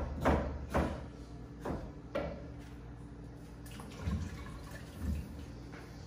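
A pump spray bottle of leave-in hair product spritzed four times, about half a second apart, in the first couple of seconds. Then come two dull knocks about a second apart.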